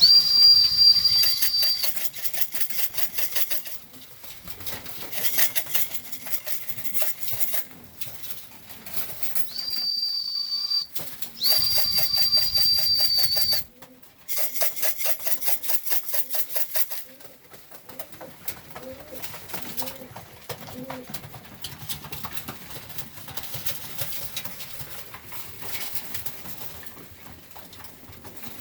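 Pigeons cooing softly, with a high, steady whistle sounding three times early on and a fast rattling or fluttering that stops about two-thirds of the way through.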